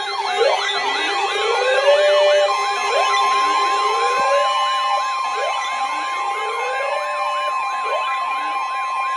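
Emergency alert attention signal: several electronic sirens sweeping at once, fast repeating yelps over slower rising wails, on top of steady alert tones. Another steady tone comes in about two and a half seconds in.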